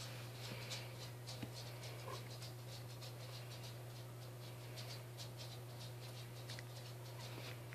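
Faint, rapid, irregular scratching and pattering of small puppies' paws and claws on a fleece blanket as they wrestle, over a steady low hum.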